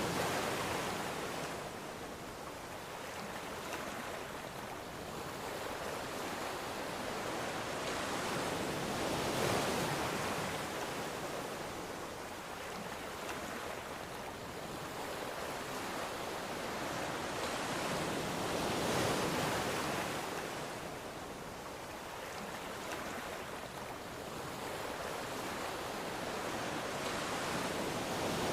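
Ocean waves breaking and washing on the shore, a continuous surf that swells about every nine to ten seconds.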